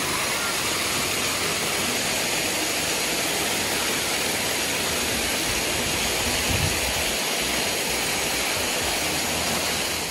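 A small waterfall cascading over rocks, heard close up: a steady, unbroken rush of water.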